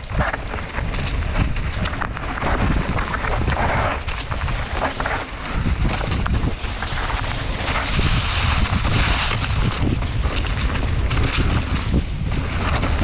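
Wind buffeting the microphone as a mountain bike rides a dirt singletrack, with a steady rush of tyre and trail noise and frequent short knocks and rattles from the bike over rough ground.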